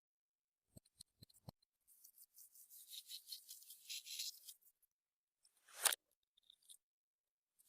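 Clear slime being handled and mixed by hand: a few small sticky clicks, then a couple of seconds of fine crackling, and a single sharper squelching pop near the end.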